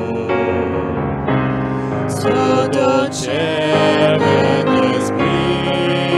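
A worship song sung by a man and a woman with piano accompaniment; the singing voice wavers and glides over sustained piano notes.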